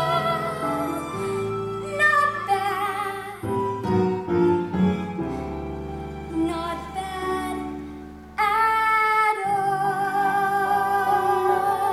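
A female singer sings a solo show tune over instrumental accompaniment. She opens on a held note with vibrato and moves into shorter phrases. About eight seconds in she comes in suddenly louder on a long held note with strong vibrato.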